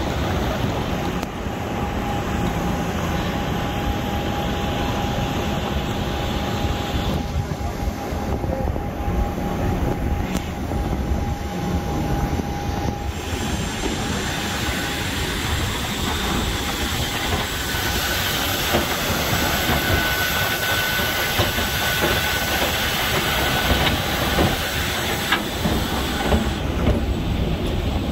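Steady roar of airport apron machinery around a parked airliner, with a thin steady whine that shifts to a higher one about two-thirds of the way through.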